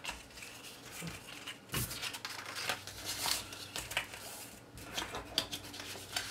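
Cardstock pieces being folded along their score lines and handled: irregular crackles, rustles and light taps of stiff paper.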